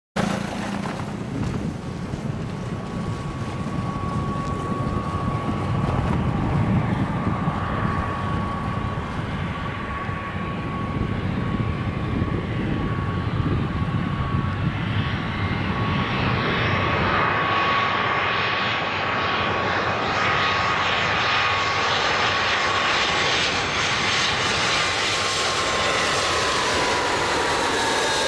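Airbus A319 airliner's jet engines on final approach to land: a steady whine over a broad rushing noise that grows slowly louder as the plane nears, the whine dropping slightly in pitch in the last few seconds as it passes close by.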